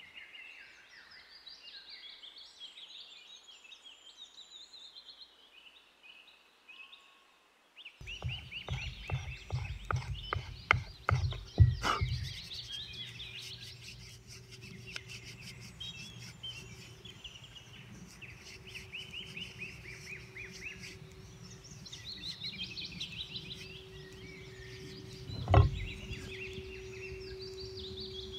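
Songbirds singing throughout. From about eight seconds in comes a quick run of rhythmic scraping strokes, a stone rubbed along a wooden hatchet handle, loudest around twelve seconds. A steady low hum then sets in, and a single sharp thump comes near the end.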